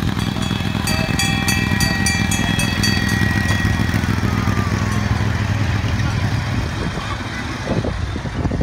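Engine of a small children's road train running steadily as it drives past, easing off as it moves away. About a second in, a high ringing with a fast rattle sounds for roughly two seconds.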